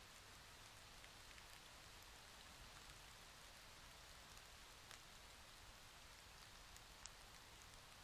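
Near silence: a faint, steady hiss with a few faint ticks.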